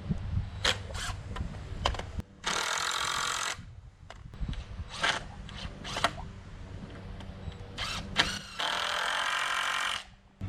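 Power tool running in two short bursts of about a second each, one about two and a half seconds in and one near the end, with scattered knocks and clicks between them.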